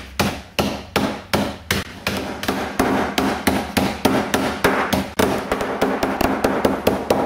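Wooden rolling pin repeatedly bashing Nice biscuits inside a plastic bag on a benchtop, crushing them into fine crumbs. The blows come about two or three a second at first, then faster.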